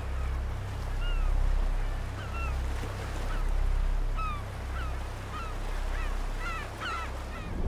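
Birds calling in short, downward-slurred cries that come more often toward the end, over a low rumble of surf that swells and fades every two seconds or so.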